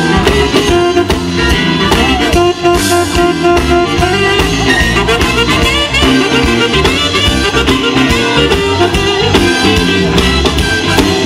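Live band playing: an alto saxophone carries a wavering lead melody over acoustic guitar, electric bass and a drum kit keeping a steady beat.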